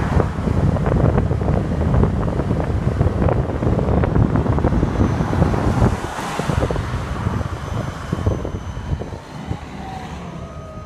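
Wind buffeting the microphone and road noise from a moving trolleybus running on battery power. About six seconds in the wind drops away, and the electric drive's whine falls steadily in pitch as the trolleybus slows.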